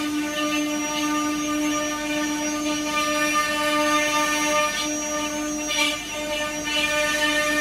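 Twelve-spindle CNC wood carving machine running, its spindles cutting into a wooden board. It makes a steady pitched whine over a hiss.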